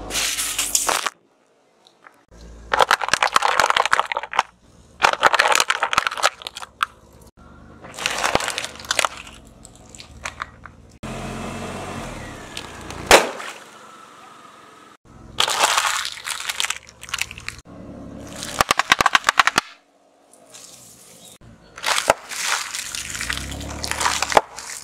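A car tyre rolling over and crushing a series of objects: plastic toys, a plastic soda bottle and a bag of snacks. The crushing comes in about eight separate bouts of crackling and crunching, with one sharp bang about halfway through as the bottle bursts.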